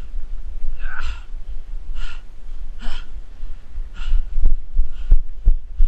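A runner's heavy breathing, gasping about once a second, with wind rumbling on the microphone. Footfalls thud several times near the end.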